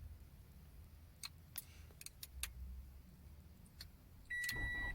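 Toyota Corolla's 1.8-litre four-cylinder engine started by a newly installed remote starter. A few faint clicks come first, then the engine catches about four seconds in and runs, with a steady high electronic beep sounding over it.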